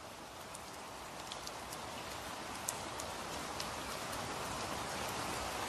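Rain sound effect: a steady hiss of rain with scattered sharp drop ticks, fading in and growing louder.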